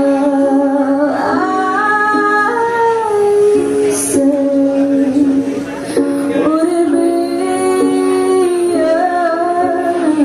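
A woman singing long, held notes that slide between pitches, over instrumental accompaniment.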